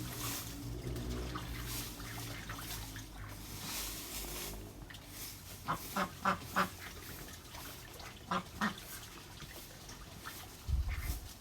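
Ducks quacking: a quick run of four quacks partway through and two more a couple of seconds later, over a faint scratching like crayon strokes on paper, with a low bump near the end.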